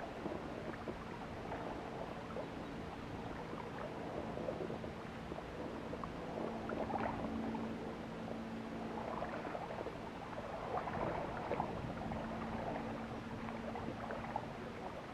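Water lapping and splashing with small irregular crackles, over a steady low hum that grows stronger from about six seconds in and eases near twelve seconds.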